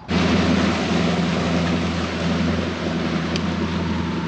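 A bass boat's outboard motor running at speed past the boat, a steady engine drone over the rush of water and wind, cutting in abruptly and dipping slightly in pitch near the end as the boat goes by.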